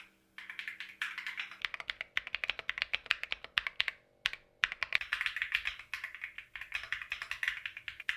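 Typing on a Keychron Q1 Max aluminum-bodied mechanical keyboard with stock, pre-lubed Gateron Jupiter Banana tactile switches: a fast, steady run of key clacks. The typing breaks briefly right at the start and again about four seconds in.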